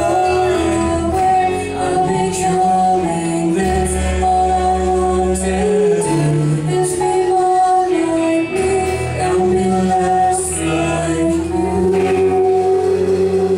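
A live band of electric and acoustic guitars, bass, drums and keyboard plays a rock song while a woman sings lead with long held notes.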